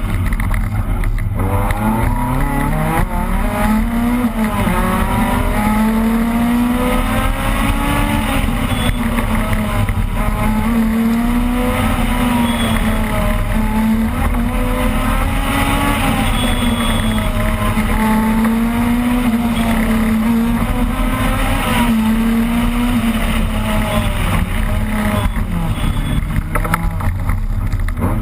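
Opel Kadett rally car's engine heard from on board, driven hard at high revs, its pitch wavering up and down as the car is driven. About a second in, and again near the end, the revs drop and then climb back up in a rising whine.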